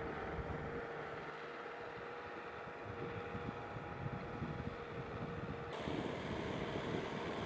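Tractor engine running steadily under load, with a held whine, as it drags a disc harrow through deep paddy mud. About three-quarters of the way through, the sound switches abruptly to a second tractor working in mud, closer and noisier.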